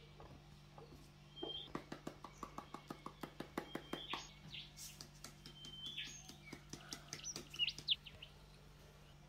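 A seasoning shaker tin shaken over a dish of sliced sweet potatoes, rattling in quick sharp clicks about four or five a second, then more sparsely. Birds chirp in short high notes at the same time, over a steady low hum.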